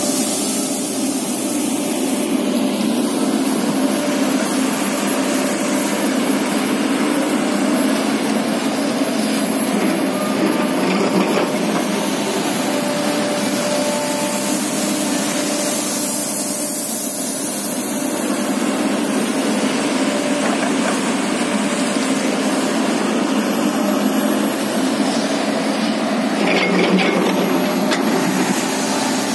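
Diesel engine of a Kobelco SK-series excavator running steadily, a constant mechanical drone with a steady hum.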